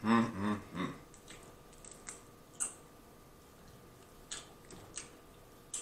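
A short hummed voice sound in the first second. Then scattered faint crackles and clicks, about six over the next few seconds, as a boiled crawfish's shell is twisted and peeled apart by hand.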